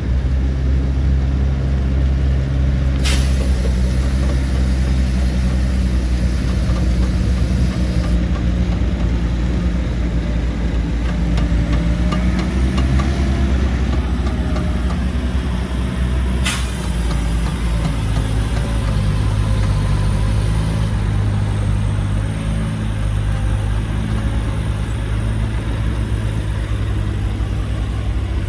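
Heavy diesel engine of earthmoving machinery running steadily with a deep drone, its pitch shifting about two-thirds of the way through. Two sharp clicks stand out, about three seconds in and near the middle.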